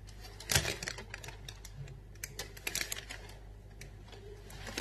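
Paper shopping receipt being handled and crinkled: a run of small sharp clicks and rustles, with one louder knock about half a second in.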